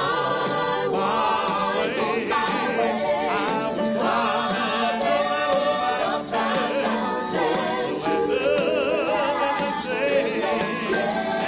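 Country gospel song: a man singing lead into a handheld microphone over instrumental accompaniment.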